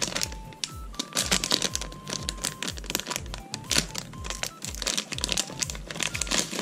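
Background music with a steady beat, over the crinkle of a foil blind-bag wrapper being handled and torn open by hand.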